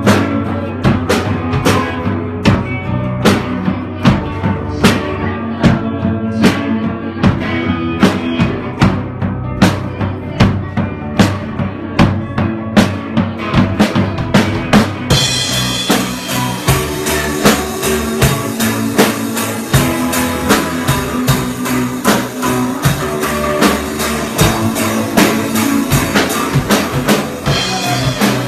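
A rock band playing live: electric guitars over a drum kit with steady, evenly spaced kick and snare hits. About halfway through the cymbals come in and keep ringing over the beat.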